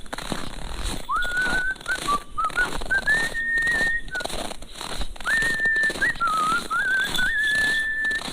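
A person whistling a tune in two phrases of held notes with small steps up and down, each phrase ending on a long high note, over a run of short scuffing noises.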